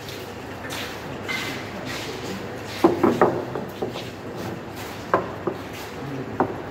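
Galvanized iron pipe assembly with its fittings knocking and clacking against a wooden table as it is set down and moved: a quick cluster of knocks about three seconds in, then a few single ones later.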